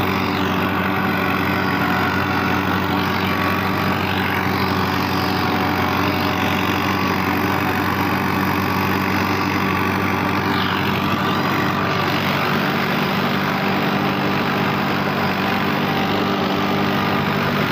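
Mahindra Arjun 555 Power Plus tractor's diesel engine running steadily under load while pulling a rotavator through the field, a constant low hum at one engine speed.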